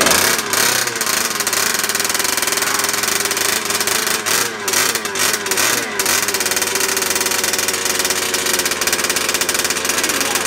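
Brand-new two-stroke gas engine of a 1/5-scale RC car catching and running on its first start after priming, its speed wavering a few times as the carburetor is fed a little throttle by hand. It runs steadily and sounds nice.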